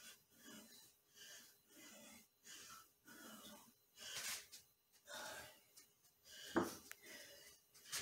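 A man breathing hard in a steady rhythm during bodyweight exercise, about two breaths a second, louder in the second half. One sharp thud about six and a half seconds in.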